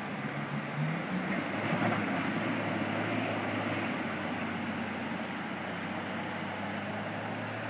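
Toyota HZJ75 LandCruiser Troop Carrier's 4.2-litre naturally aspirated 1HZ diesel working under load as it drives out of the creek and climbs the bank. Its note rises about a second in, then pulls steadily. The steady rush of the creek water runs underneath.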